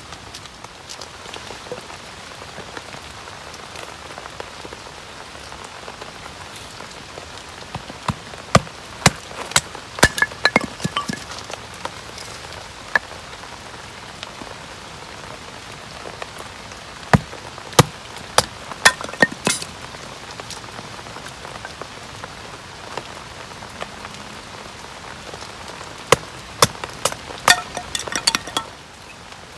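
Steady rain falling, with several clusters of sharp clicks and taps over it, three times.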